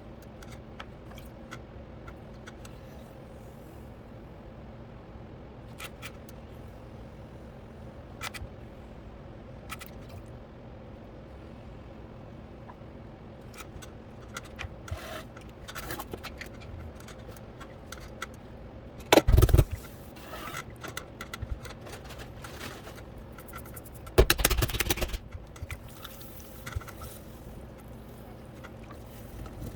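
Potter's wheel motor humming steadily while tools scrape and tap on clay, with two loud scraping knocks, about two-thirds of the way in and again a few seconds later.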